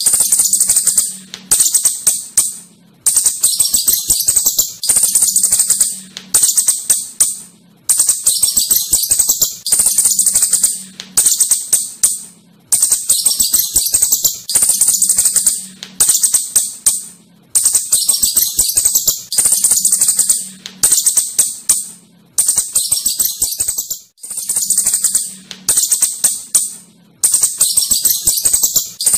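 Asian house shrew (celurut) giving a rapid rattling chatter of high-pitched squeaks in spells about a second long, repeating with short gaps.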